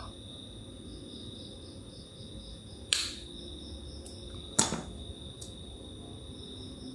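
Two sharp snips of diagonal side cutters biting through the copper winding wire of a motorcycle stator coil, about a second and a half apart: the winding's ground lead being cut.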